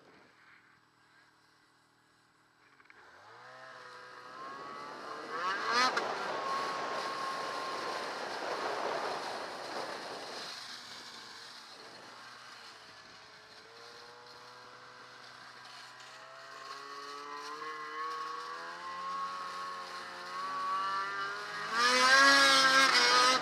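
Ski-Doo snowmobile engine revving up from near quiet about three seconds in, rising in pitch as the sled accelerates. It eases off through the middle, then climbs again to its loudest near the end.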